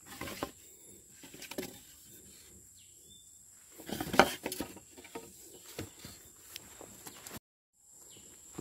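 Footsteps on a dirt path, with a hand gripping and brushing the rails of a bamboo-and-wood fence: scattered rustles and light knocks. The loudest clatter comes about four seconds in, and the sound drops out for a moment near the end.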